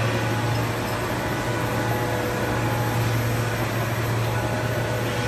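Polyethylene film blowing machine running steadily: a constant low hum under an even mechanical noise.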